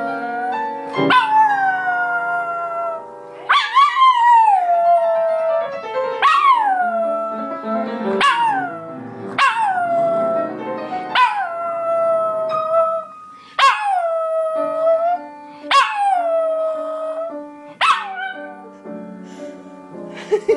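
A small long-haired dog howling along to piano music: a string of about nine howls, each swooping down from a high start and then holding a note, over sustained piano chords.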